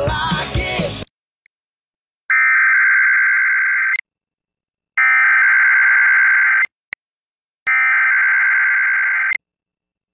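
Emergency Alert System SAME header from NOAA Weather Radio: three bursts of digital data tones, each under two seconds long, with about a second of silence between them. Music cuts off about a second in, just before the first burst. The header marks the start of an emergency alert broadcast, here a high wind warning.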